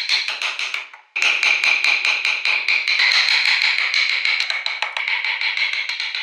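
Steel chisel cutting into a soft wooden block by hand, making a fast, even run of crisp ticks and crackles as the blade shears the wood fibres. The sound fades out just before one second in and returns suddenly a moment later.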